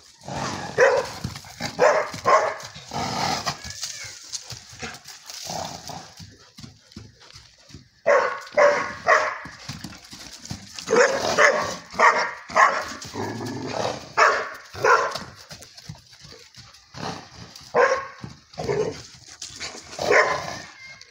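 Small dog barking at a horse, in quick runs of two or three barks with short pauses between runs.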